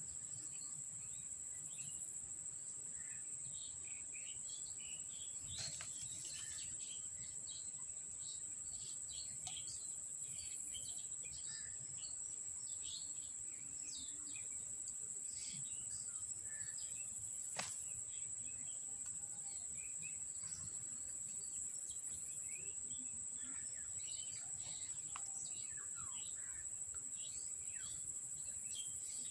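Outdoor ambience of insects keeping up a steady, high-pitched drone, with many short bird chirps scattered over it. There are two sharp clicks, the louder one a little past the middle.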